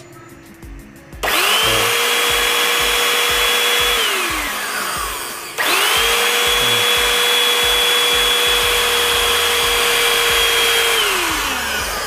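The 350 W motor of a Jaco EZ Hoover Turbo hand vacuum cleaner, test-run after a bearing replacement, is switched on twice. Each time it spins up within a moment to a steady high whine with a strong rush of air from the exhaust. It runs for a few seconds and then winds down in pitch as it is switched off. The second start comes about halfway through, and the second wind-down near the end.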